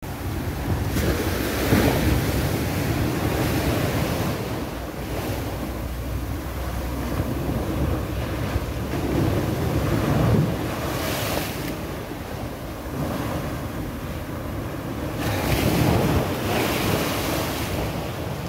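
Sea waves surging in and breaking against a concrete seawall, each wave a swelling wash and hiss of spray, the loudest splash about ten seconds in. Wind rumbles on the microphone underneath.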